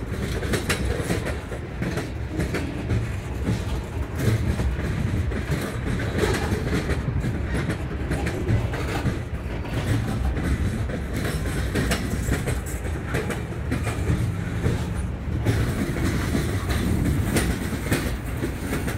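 Freight train of open-top hopper and gondola cars rolling past, a steady rumble with scattered clacks of wheels over rail joints.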